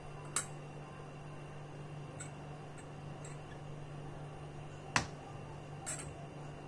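Wooden rolling pin knocking against a marble rolling board as the stuffed paratha is rolled out, a few sharp clicks, the loudest about five seconds in.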